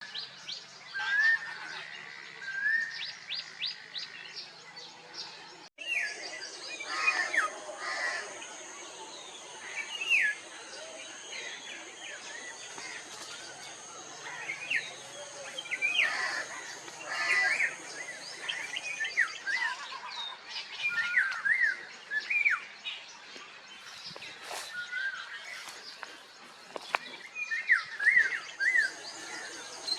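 Songbirds chirping and whistling in short, rapid, up-and-down notes, with several calls overlapping. A brief cut comes about six seconds in, after which a steady high thin whine sits behind the birds for about thirteen seconds.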